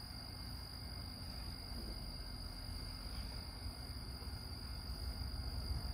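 Crickets trilling: a steady, unbroken high-pitched trill over a low background hum.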